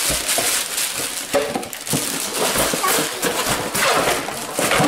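Cardboard packaging and plastic wrap rustling and crinkling as toys are pulled out of their boxes, with scattered light knocks of the boxes being handled.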